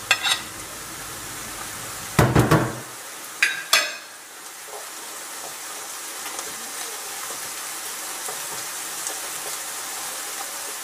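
Chopped carrots being added to a hot frying pan and stirred with a wooden spatula: a low thump about two seconds in and sharp clinks of a metal spoon near four seconds, then a steady sizzle of frying.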